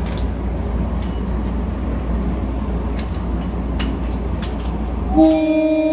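Steady rumble inside a stopped train car, then about five seconds in the train's horn sounds, one loud held tone, signalling departure.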